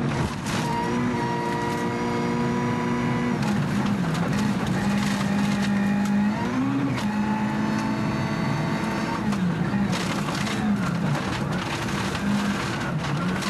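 Mitsubishi Lancer Evolution IV rally car's turbocharged four-cylinder engine at speed, heard from inside the cabin. The pitch holds high, then dips and climbs again several times as the driver lifts and changes gear. Sharp knocks and clatter from loose stones hitting the car are heard throughout.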